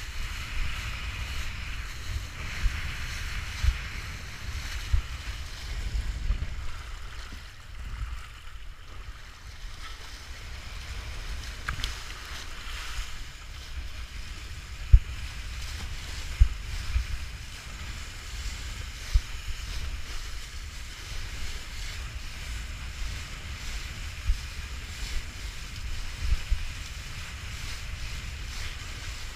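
Wind buffeting the action camera's microphone in a low rumble with frequent thumps, over the steady hiss of a kiteboard planing across choppy water and throwing spray.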